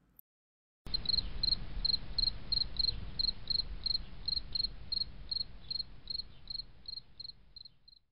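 An insect chirping in a steady, regular rhythm of about three high chirps a second over a low rumble. It starts suddenly about a second in and fades out near the end.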